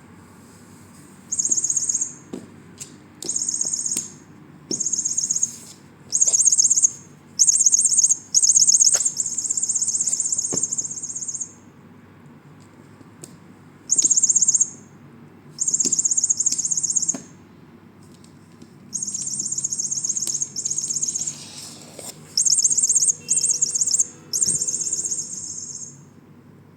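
Electronic chirping of a sound-making toy mouse, coming in about a dozen high, rapidly pulsing bursts of one to three seconds each, with faint knocks in the gaps between them.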